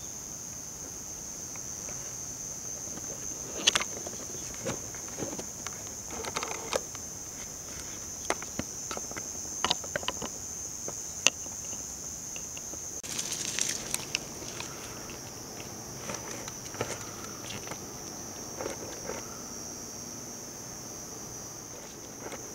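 Insects calling in a steady high-pitched drone, with scattered small clicks and taps over it.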